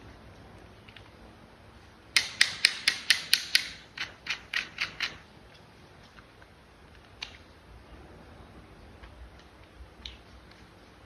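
A small mechanism clicking in two quick runs, like a ratchet. A louder run of about seven clicks is followed by a softer run of about six, at roughly five a second. A few faint single clicks come later.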